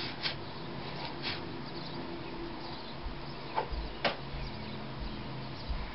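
Small handling sounds of paper and a glue bottle as glue is put onto a folded sheet: a few scattered soft clicks and scrapes over a low steady hum.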